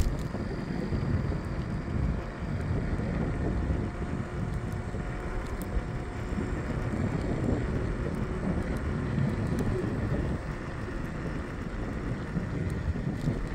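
Steady wind rumble on the microphone of a moving scooter as it rides along the street.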